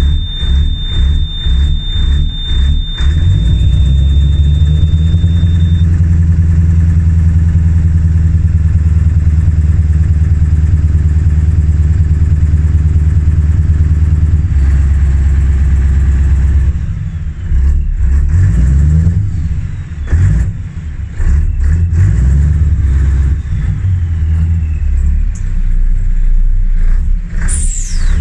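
Old diesel V8 truck engine running: an even idle pulse for about three seconds, then held at a raised, steady speed for roughly thirteen seconds, then revved up and down unevenly. A steady high-pitched tone sounds over the first six seconds, and a short falling whistle comes near the end.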